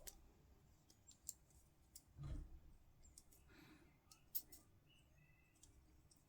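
Faint clicks and taps of small plastic miniature parts being handled and pushed together on a push-fit kit, with a soft low bump about two seconds in.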